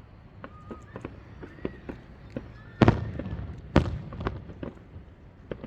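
Aerial fireworks shells bursting: two loud booms about a second apart near the middle, amid scattered crackling pops.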